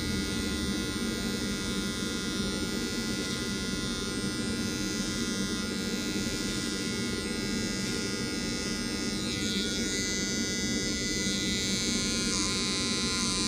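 Amuliss cordless T-blade hair trimmer running steadily while it edges short hair around and behind the ear.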